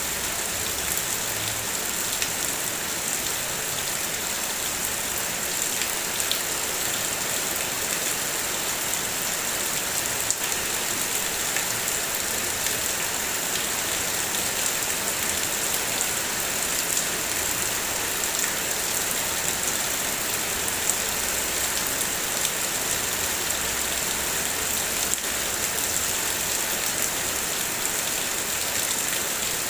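Heavy rain falling steadily on a car, a dense even hiss with scattered taps of single drops.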